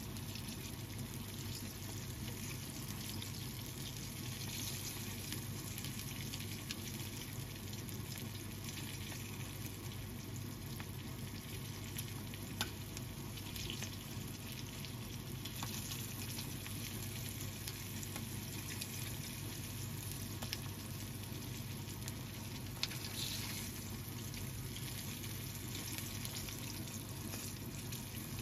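Floured chicken drumsticks (karaage) shallow-frying in oil in a frying pan, a steady sizzle. Two sharp clicks, once near the middle and once later on, from the metal tongs turning the pieces.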